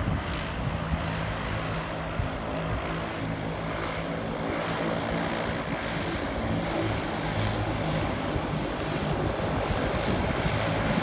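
A single-engine de Havilland Canada Otter floatplane's engine and propeller running steadily at low power as it taxis up to the dock.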